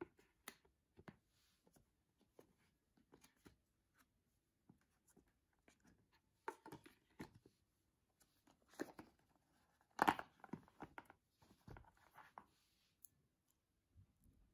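Faint handling of a smartphone's cardboard packaging and inserts: scattered light taps and clicks, then rustling and scraping of cardboard in the second half, loudest about ten seconds in.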